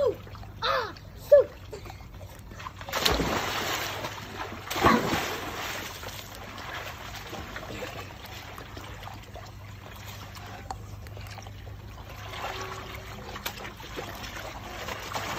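Children plunging into a swimming pool: a big splash about three seconds in and another just before five seconds, then water sloshing and lapping. A child's voice calls briefly in the first seconds.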